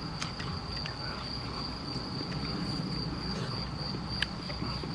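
Crickets chirping steadily as a continuous high-pitched trill, over a low rumble. A few light clicks of tableware, with a sharper one about four seconds in.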